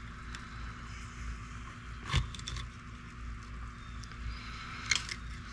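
Fillet knife working through a pompano's belly on a plastic cooler lid: a sharp knock about two seconds in and a few quick clicks near the end, over a steady low rumble and hiss.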